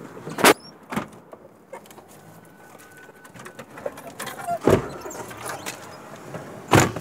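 Knocks and thumps of someone getting into a car, ending with a heavy thump near the end that fits a car door shutting.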